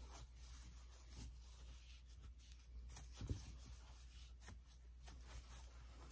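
Faint rustling and soft ticks of a metal crochet hook drawing thick yarn through double crochet stitches, with one low thump about three seconds in.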